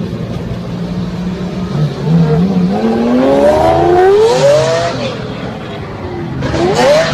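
Supercar engines revving hard as the cars accelerate away. The pitch climbs in a long rise from about two seconds in and again sharply near the end, over a steady low engine drone.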